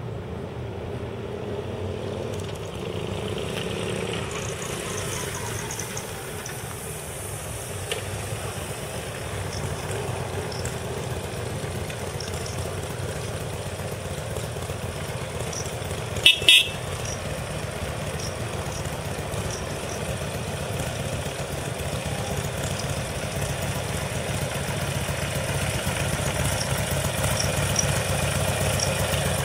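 Harley-Davidson XL1200R Sportster's 1200 cc V-twin, breathing through an aftermarket OVER muffler, running at low speed as the bike pulls up, then idling close by and growing steadily louder. About halfway through the bike's horn sounds in two short toots.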